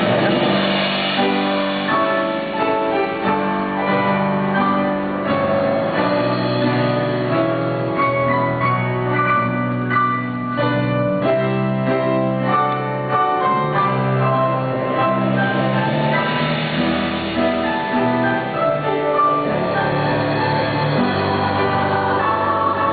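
Instrumental theatre-pit music led by piano, with sustained notes and chords changing about every second.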